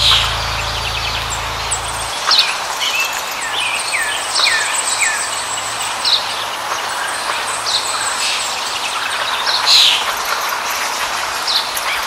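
Birds chirping, short falling calls about once a second, over a steady outdoor hiss. A low hum stops about two seconds in.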